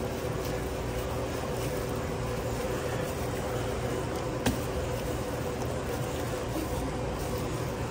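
Steady hum of restaurant equipment with a faint constant drone, and one sharp click about four and a half seconds in.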